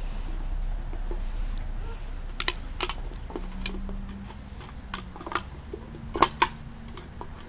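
German Shepherd puppies chewing and tugging on an aluminium drink can: scattered sharp crinkles and clicks of the thin metal, the loudest a pair about six seconds in. A low rumble runs under the first half.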